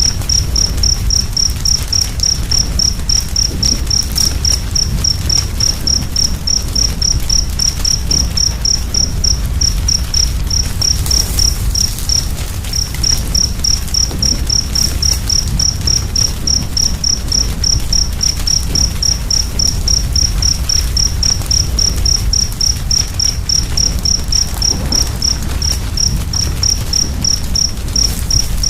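A cricket chirping in an even, high-pitched pulse, about four chirps a second, pausing briefly about halfway through. Beneath it a wood fire crackles with a steady low rumble.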